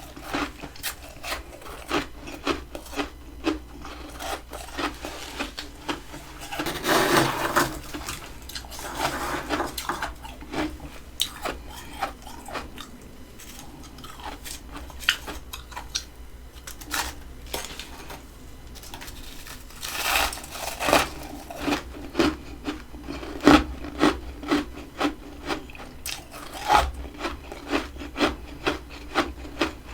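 Hard freezer frost being scraped and crunched in a long run of short, sharp strokes. There are longer grinding stretches about seven seconds in and again about twenty seconds in.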